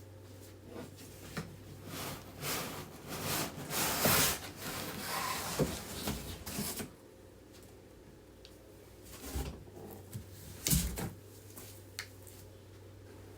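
Cardboard box and packing material being handled: rustling and scraping for several seconds, loudest about four seconds in, then a few separate knocks and bumps near the end.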